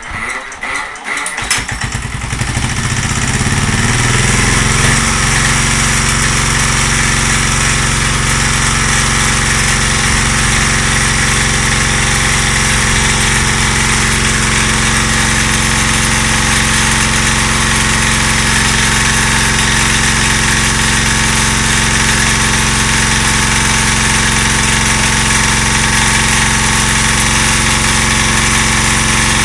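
Small 3 kVA diesel generator engine hand-cranked and firing up: quickening chugs catch within the first couple of seconds. The engine then runs up to speed and keeps running steadily.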